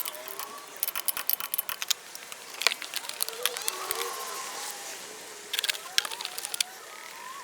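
Hand tools and metal parts clinking in quick, irregular clusters of sharp clicks during work on a car's front wheel hub and brakes.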